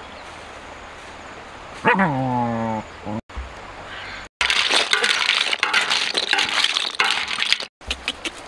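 A dog whines once, the pitch falling steeply, about two seconds in. From about halfway on, a spatula scrapes roasted snails and fish out of a metal wok into a woven bamboo basket: a dense rattling clatter of shells against metal and wicker.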